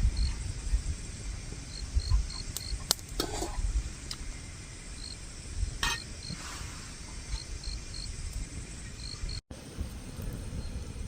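An insect chirping in short, high-pitched pulses that come in small groups of two to four, over a low rumble, with a few sharp clicks.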